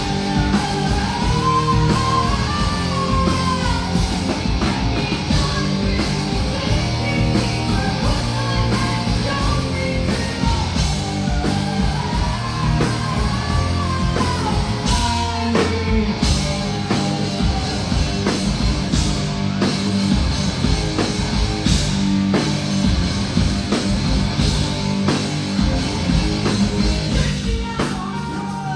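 Live hard rock band playing loud, with distorted electric guitars, bass and drum kit under a sung melody.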